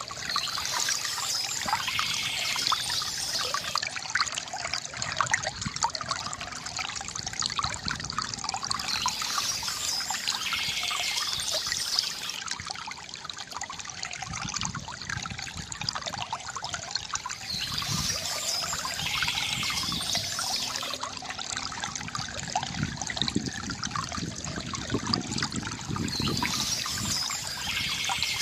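River water gurgling and trickling steadily over stones. A brighter splash recurs about every eight and a half seconds.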